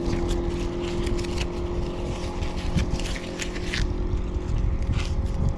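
Boat outboard motor idling with a steady hum, under a run of crinkles and clicks from paper licences and plastic packets being handled.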